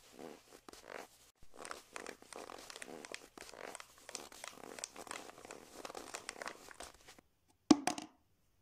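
Irregular crunching and crinkling as a green plastic cup is pushed over crusty snow, many short scrapes in a row. It stops briefly, then one sharp knock comes near the end.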